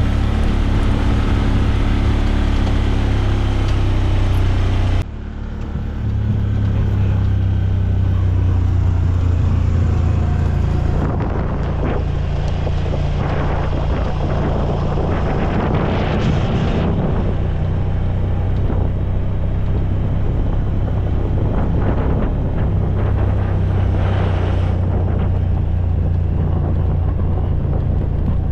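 A vehicle engine running steadily on the move, with wind buffeting the microphone; the sound cuts abruptly about five seconds in and picks up again.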